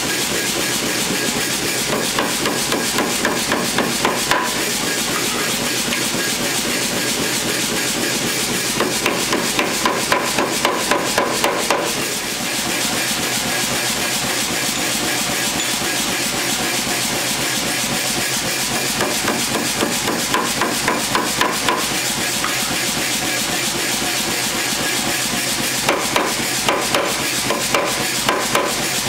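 Hand-hammer blows on red-hot square steel bar held in a tong-forging tool on the anvil, coming in four runs of several blows at about three a second, over a steady rushing background noise.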